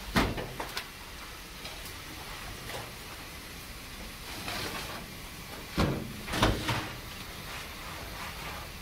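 Knocks and thuds of a whole roasted lamb being lifted and set back down on a steel serving platter: a couple of sharp knocks just after the start and another cluster about six seconds in.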